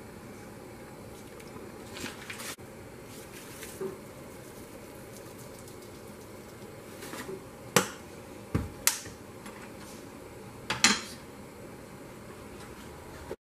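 A handful of sharp clinks and knocks of a spoon and seasoning containers against a large metal stockpot, mostly in the second half, with the loudest near the middle and near the end, over a steady background hiss.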